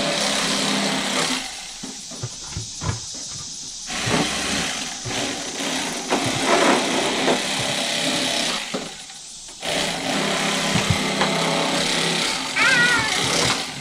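Electric fillet knife running as it cuts through small bluegill. The motor drops back after about a second and a half, runs again, then stops for about a second and starts up once more.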